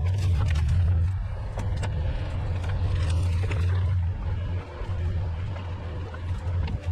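An engine running steadily with a low, even drone, with scattered short clicks over it.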